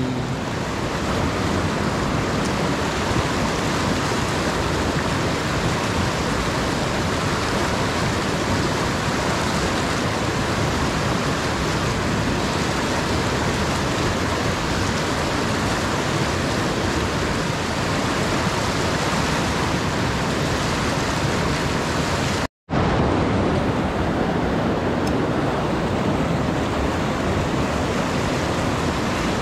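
Steady rush of river water churning over and around boulders in a shallow rapid. It cuts out for a split second about three quarters of the way through.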